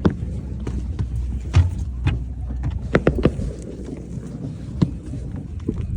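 Steady low rumble aboard a boat, with scattered sharp clicks and knocks of a life jacket and its buckles being handled.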